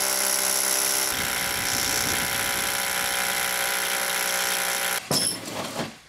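Hammer drill with a long masonry bit boring into a brick wall. It runs steadily with an even motor whine and stops about five seconds in.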